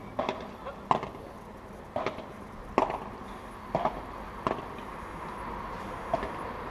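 Padel rally: the ball is struck back and forth by the players' solid rackets and bounces off the court and glass walls. About seven sharp hits come at uneven gaps, roughly one a second, with a longer pause near the end.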